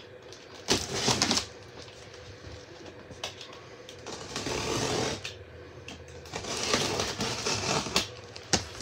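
Utility knife slicing through packing tape and cardboard on a shipping box in several scratchy strokes: about a second in, again around four to five seconds, and a longer one near the end, with a few light knocks on the box.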